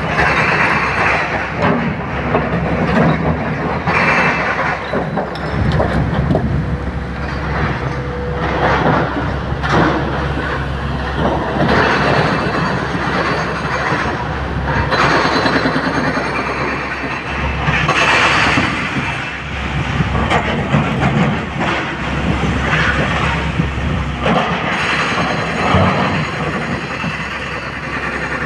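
SANY hydraulic excavator working a pile of broken rock: its diesel engine runs steadily under load while the steel bucket scrapes, scoops and dumps the stone, with repeated clattering and crashing of rock against rock and against the steel tipper body.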